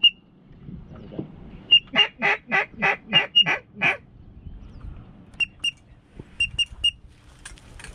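Duck quacking: a run of about eight loud quacks, about four a second, starting some two seconds in. Later come a few short, thin, high chirps.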